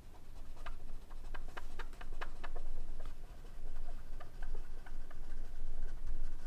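Wooden cotton-tipped applicator wet with conditioner, scrubbed firmly back and forth over an abraded aluminium beam: a quick run of scratchy ticks, thickest in the first half, over a steady low hum. This is the wet scrub that clears the pencil layout marks during surface preparation.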